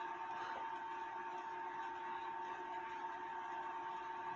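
Small belt-drive electric motor of a watchmaker's lathe running steadily, a constant hum with a higher tone and an even hiss.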